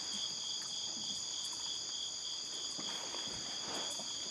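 Continuous chorus of night insects: an even high trilling held on a few steady pitches, with a few faint knocks and a short rustle near the end.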